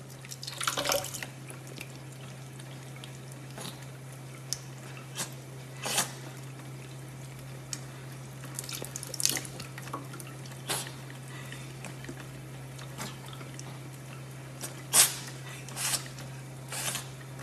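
Kitchen faucet running a thin steady stream into a sink while a cat drinks from it, with sharp splashy clicks now and then, the loudest about fifteen seconds in. A steady low hum runs underneath.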